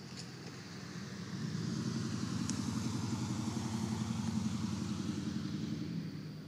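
A motor vehicle passing by: its engine hum grows louder over the first couple of seconds, holds, then fades near the end.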